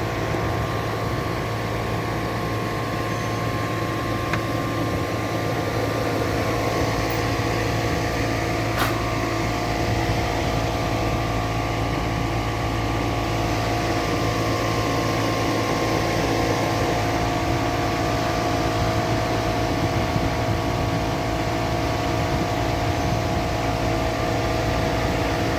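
Steady machine hum holding several fixed pitches, with a single faint click about nine seconds in.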